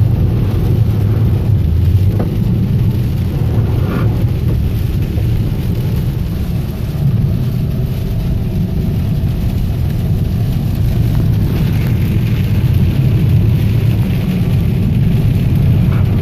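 Car driving through a rainstorm, heard from inside the cabin: a steady low road and engine rumble with rain on the car.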